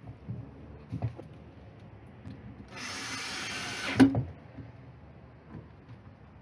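Cordless drill-driver run once for about a second, driving a screw into an OSB wooden box, ending in a sharp knock. Lighter knocks of handling the box and tools come before it.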